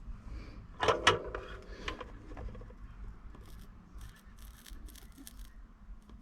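Handling noise from small tools and wires during soldering: a sharp cluster of clicks and a brief clatter about a second in, a few lighter clicks, then faint scratching and rustling.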